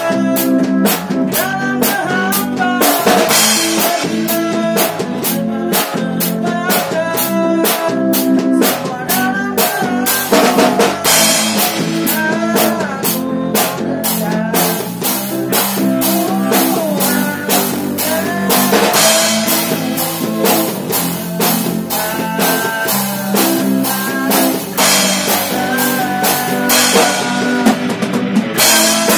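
Live band music from acoustic guitars strumming and picking together over a drum kit keeping a steady beat.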